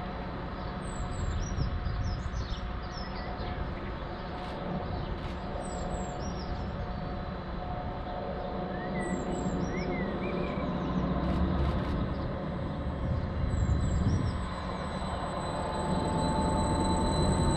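Stadler Class 755 bi-mode train's diesel power pack running with a steady low rumble. A high steady whine comes in near the end as the sound grows louder. Small birds chirp over it.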